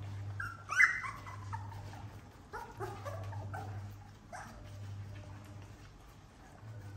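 Young puppies whimpering and yipping as they crowd their mother to nurse: short high cries that slide in pitch, the loudest about a second in, then a cluster of them around three seconds. A steady low hum runs underneath.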